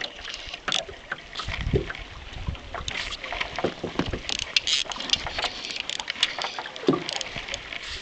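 Irregular splashing, knocks and rattles from a small fishing boat on the water, with a couple of dull low thumps about two seconds in.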